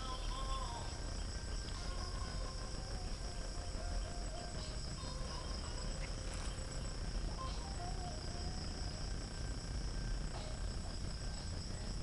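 Steady, unbroken high-pitched chorus of forest insects such as crickets or cicadas, with a faint low rumble underneath.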